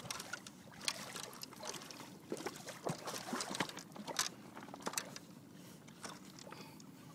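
Irregular knocks, rubbing and light splashing of water while a freshly landed northern pike is handled.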